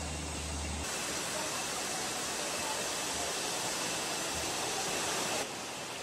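Steady rushing hiss of a stream's flowing water. It comes in abruptly about a second in and cuts off abruptly near the end, with a faint steady high tone underneath.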